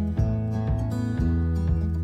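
Background music of strummed acoustic guitar, with a steady beat.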